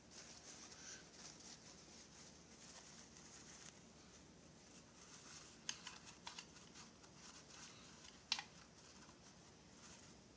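Faint rustling and crinkling of a paper towel being stuffed by hand into an open chainsaw crankcase around the connecting rod, with a few sharp light clicks in the second half, the loudest near the end.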